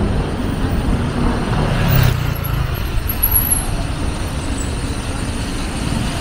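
City street traffic: vehicles passing with a steady rumble, a louder one going by about two seconds in.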